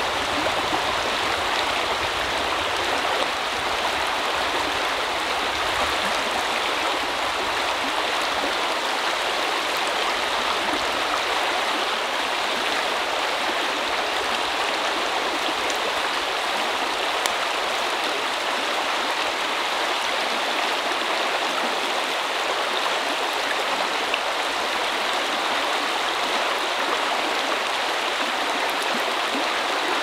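Shallow river running over stones: a steady rushing of water.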